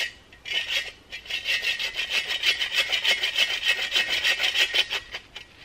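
Hand saw cutting through a branch with quick back-and-forth strokes. It stops briefly twice in the first second, then saws steadily and stops about five seconds in.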